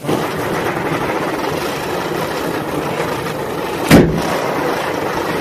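Diwali fireworks going off: a sudden rush of hissing, crackling sparks that keeps up steadily, with one sharp bang about four seconds in.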